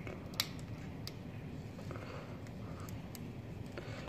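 A few faint clicks and taps of a burnt plastic HD DVD disc being handled and turned over on a hard surface, the sharpest click about half a second in, over a steady low hum.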